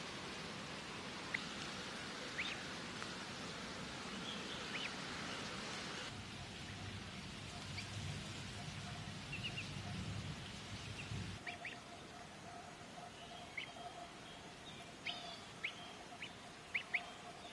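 Ducklings peeping: short, high peeps scattered through, with several in quick succession near the end, over faint outdoor background noise.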